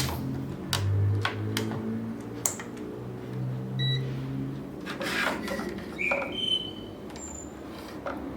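Clicks and taps of multimeter probes and handling on a laptop motherboard while the CMOS coin battery is measured, with one short electronic beep about four seconds in and a few brief high chirps after it.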